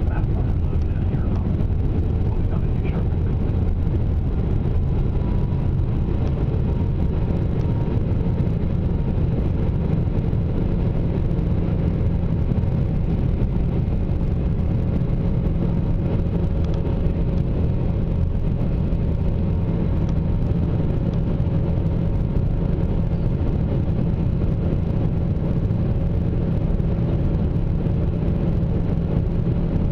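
Airliner cabin noise during the climb after takeoff, heard inside the cabin beside the wing engine: a steady low rumble of the jet engines and rushing air, with a faint steady hum above it.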